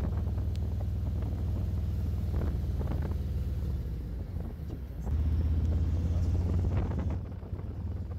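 Harley-Davidson Road Glide Special's V-twin engine running with a steady low rumble and some wind on the microphone; it grows louder about five seconds in and eases back near the end.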